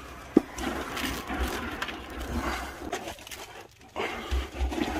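Wet scrubbing and rubbing through soapy foam around a van's brake disc, wheel hub and wheel arch, with a sharp knock about half a second in. Low rumbling bumps come now and then.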